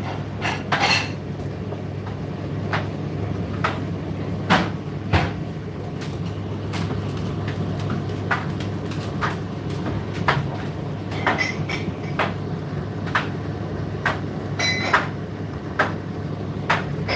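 Indesit IDC8T3 condenser tumble dryer running mid-cycle: a steady low motor hum with irregular knocks and clicks, about one a second, as the load tumbles in the drum.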